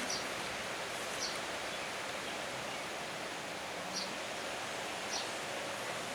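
Steady outdoor background hiss with wind on the microphone, broken by four or five short, high chirps spaced a second or more apart.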